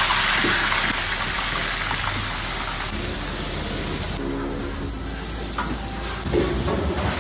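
Wet paste poured into hot oil in a large copper cooking pot, sizzling loudly at first and easing after about a second as it is stirred with a long iron ladle.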